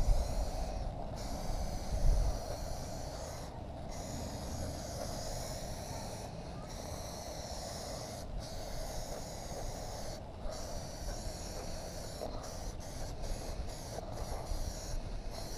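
Aerosol can of Plasti Dip spraying in long hissing bursts with short breaks between them, then several quick short bursts near the end. Under it runs a low rumble on the microphone, strongest in the first couple of seconds.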